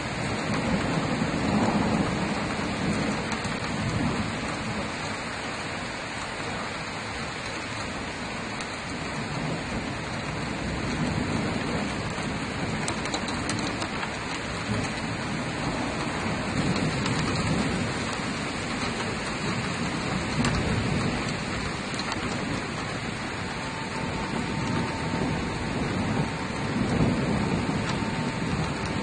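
Heavy cloudburst rain pouring down steadily in a dense hiss, with low rumbles of thunder swelling several times, the loudest near the end.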